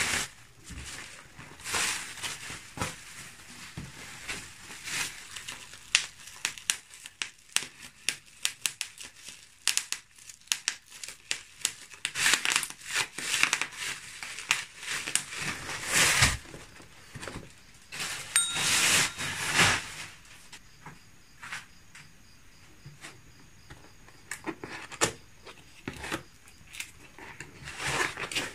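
Bubble wrap being pulled off a box and crumpled by hand: irregular crinkling and crackling, loudest in the middle and easing off for a few seconds before a last flurry near the end.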